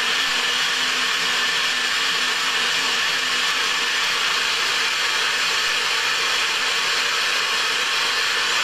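NutriBullet 900 Series blender running steadily, blending soaked tiger nuts with added water into a smooth paste: a constant motor whirr with a faint steady hum.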